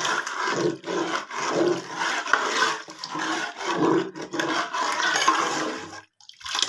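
Kadhi sloshing and swishing in the pot as it is stirred, in rhythmic surges about once a second, stopping suddenly about six seconds in.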